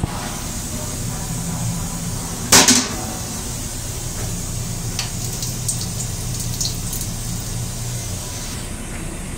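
Steady low hum of a Metro-North Comet II railcar heard inside its small restroom, with one brief, loud rushing burst about two and a half seconds in and a few faint ticks later on.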